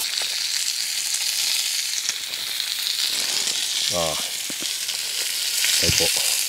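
Sliced pork and bean sprouts sizzling steadily on a hot iron sandwich-griddle half over a gas burner, stirred with chopsticks. Two brief pitched sounds come through, about four and six seconds in.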